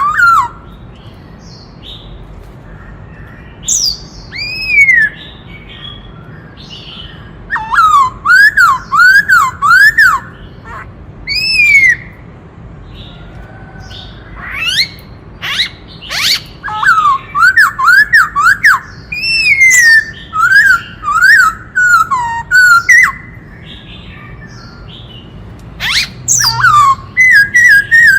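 Black-throated laughingthrush singing loud phrases of quick, rising-and-falling whistled notes, broken by pauses of a few seconds.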